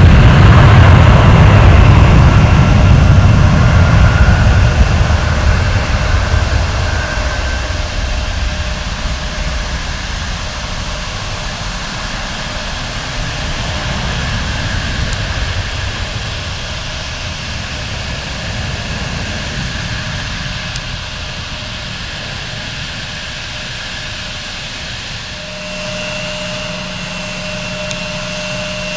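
Jet engines at takeoff power as a rear-engined jet rolls and climbs away, a deep roar with a whine in it, fading steadily as it departs. Near the end the sound changes abruptly to the steady, high whine of a CRJ-900 regional jet's turbofans on the runway.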